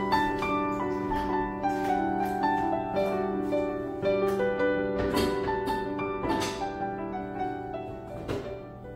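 Background instrumental music with soft piano-like notes, growing quieter toward the end, with a few short clicks over it from about halfway.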